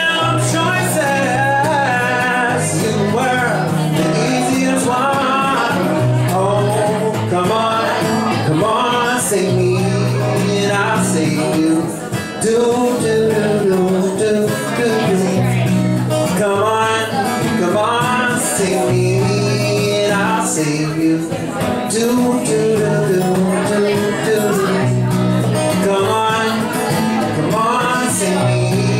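Man singing over a strummed acoustic guitar, the guitar's low notes changing every second or so beneath a wavering vocal melody.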